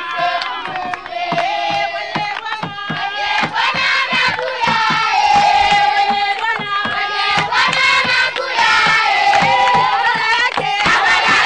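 A crowd of women and children singing together and clapping their hands in a steady rhythm, with shouts among the voices.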